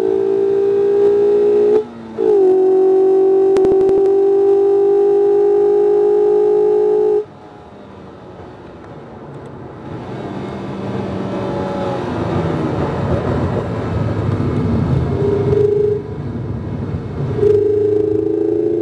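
Mazda MX-5 RF's 2.0-litre four-cylinder engine pulling hard at high revs, its pitch rising slowly, with a short break about two seconds in. About seven seconds in the engine note drops away suddenly as the throttle is lifted, leaving a rougher rumble of engine and road noise that grows louder, and the high engine note picks up again near the end.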